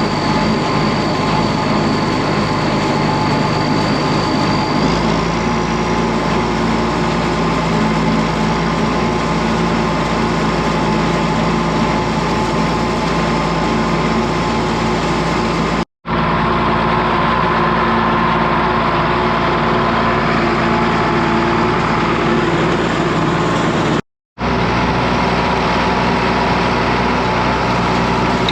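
Tractor engine running steadily while pulling a hay rake, with a small change in tone about five seconds in. The sound cuts out briefly twice.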